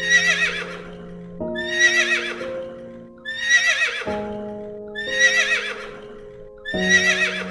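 A horse whinnying five times, a little under two seconds apart, each a short quavering call of the same shape, over background music of slow held chords.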